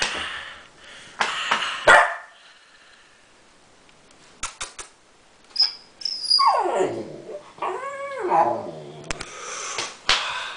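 Siberian husky puppy vocalising: a few short rough barks, then in the second half drawn-out howling 'talking' calls that slide down in pitch and arch up and down.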